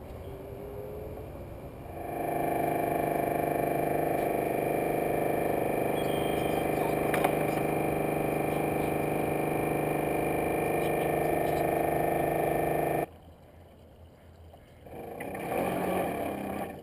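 A radio-controlled model tugboat's motor running at steady speed, a droning whine of several steady tones, which cuts off suddenly about 13 seconds in. Near the end comes a short rush of splashing water.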